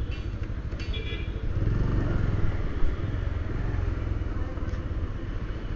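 Bajaj Pulsar 150's single-cylinder engine running at low speed, a little louder about two seconds in.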